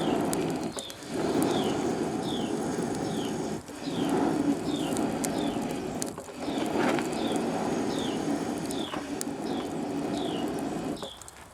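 Charcoal forge running with its air blast: a rushing noise in stretches of two to three seconds broken by short dips, with short high descending chirps repeating about twice a second.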